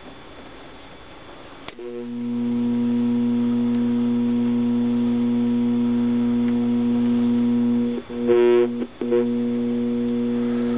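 Tomy Omnibot robot's speaker giving a loud, steady electrical buzz that starts about two seconds in, with a brief stuttering burst and a short break about eight seconds in before it carries on. The buzz is a fault of this non-working robot.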